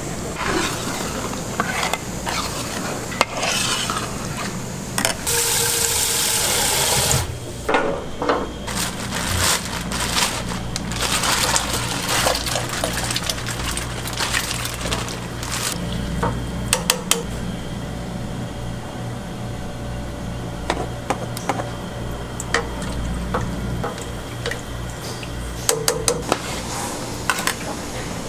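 Metal pans and utensils clattering and scraping at a snack-stall cooking station, over a steady low hum. A loud hiss lasts about two seconds, starting about five seconds in.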